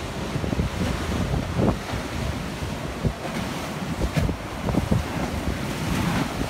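Rough sea surf washing and breaking against a seawall, with wind buffeting the microphone. About six seconds in a wave crashes against the wall and splashes up.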